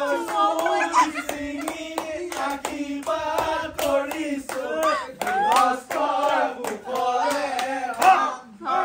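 A group of voices singing a Bihu song with quick rhythmic hand clapping, several claps a second, and no instruments.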